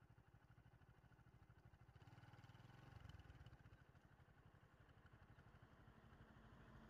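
Faint engine idling in a steady fast pulse. Near the end a Mitsubishi Canter truck's engine grows louder as the truck comes closer.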